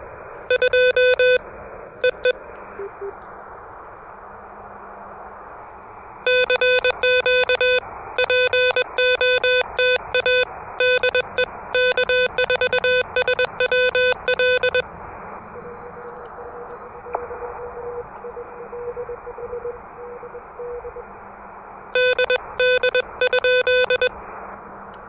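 Morse code on an Elecraft KH1 transceiver: a loud keyed tone in rapid dits and dahs near the start, for several seconds from about six seconds in, and again near the end. Between the bursts there is a steady receiver hiss, and a fainter incoming Morse signal can be heard about two-thirds of the way through.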